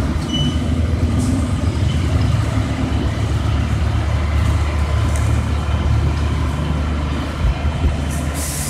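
Steady low rumble of a fire engine running beside a burning pickup truck. Just before the end a bright hiss starts as the firefighters' hose sprays onto the fire.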